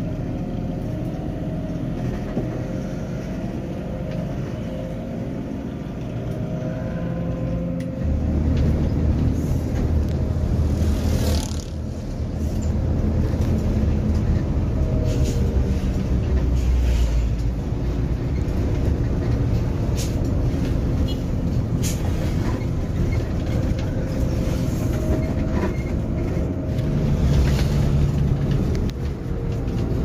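Cab interior of a long-distance coach: the diesel engine runs steadily, then grows louder about eight seconds in as the coach gets under way, with a brief dip near twelve seconds and a few scattered clicks and rattles over the road noise.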